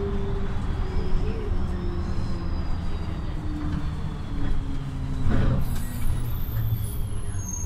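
City bus engine and drivetrain running, heard from inside the bus, with a whine that slowly drops in pitch as the bus eases off. A short hiss comes about five and a half seconds in.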